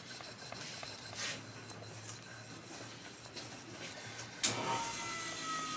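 Faint scraping of a shear blade being honed by hand on a flat sharpening stone. About four and a half seconds in, a flat hone sharpening machine starts up and runs steadily, with a thin whine that slowly falls in pitch.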